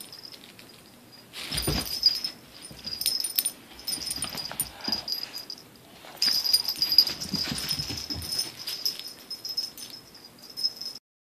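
Two dogs, a large dog and a dachshund, playing tug-of-war with a plush toy: scuffling, tugging and small clicks, with dog play noises. The sound stops abruptly near the end.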